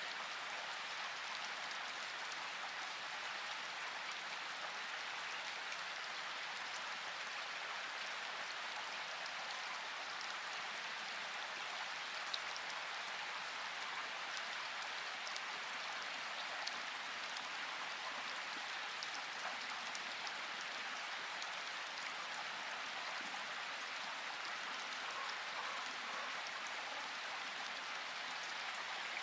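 Steady rain falling, an even hiss of many drops with occasional sharper drop ticks, one standing out about twelve seconds in.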